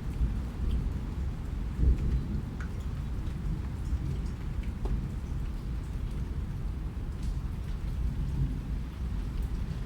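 Steady rain with a deep low rumble and scattered drop ticks, swelling briefly louder about two seconds in.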